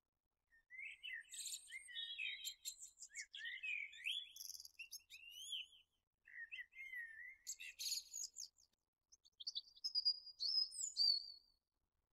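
A songbird singing in quick phrases of varied chirps, trills and whistled notes, broken by a couple of short pauses.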